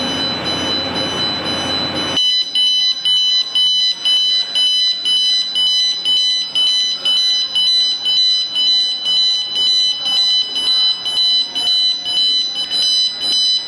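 Building fire alarm sounding with a high, piercing tone that pulses rapidly and evenly. A loud rushing noise lies under it for the first two seconds, then cuts off.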